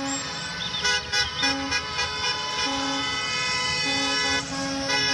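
Several school bus horns honking at once at different pitches, in long blasts that start and stop and overlap one another.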